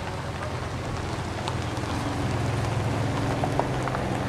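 A steady low engine hum that grows louder over the first couple of seconds, with a few faint clicks and taps over it.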